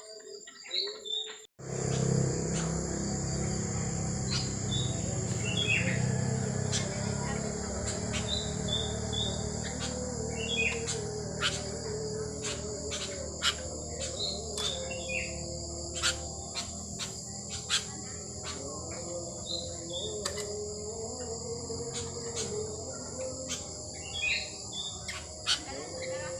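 Sooty-headed bulbul giving short, scattered chirping calls, over a steady high insect drone and a scatter of sharp clicks.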